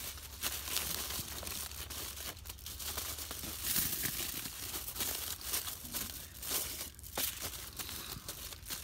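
Aluminium foil crinkling and crackling irregularly as hands wrap, fold and press it around a leaf-wrapped chicken.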